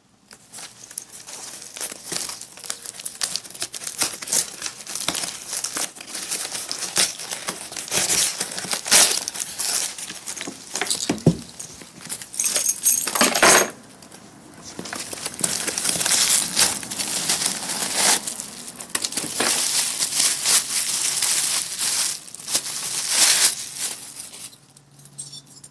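A taped cardboard box and its packing being torn open and unwrapped by hand: a long run of crackling, crinkling and tearing, with a short lull about halfway through.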